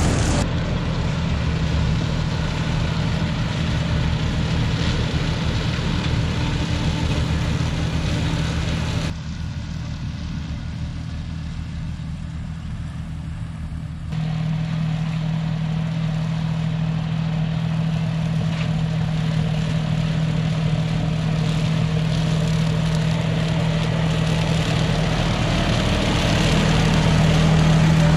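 John Deere 5075E tractor's diesel engine running steadily while pulling an E12 flex-wing rotary mower through pasture. There is a quieter stretch from about nine to fourteen seconds in, with an abrupt change at each end.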